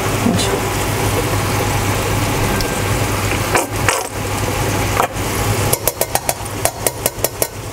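Pork and eggplant sizzling in a frying pan over a steady low hum. Near the end a utensil clicks quickly against the pan, about four or five times a second, as the ketchup is added.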